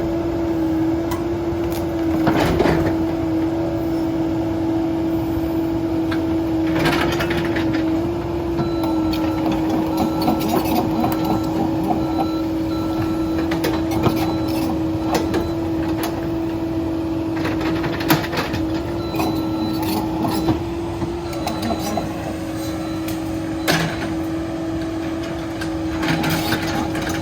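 Cat 308 excavator running steadily with a constant engine-and-hydraulic whine, with scattered sharp knocks and cracks as it works through brush and trees.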